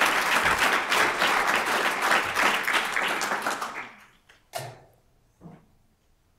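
Audience applauding, a dense patter of many hands that dies away about four seconds in. Two soft knocks follow shortly after.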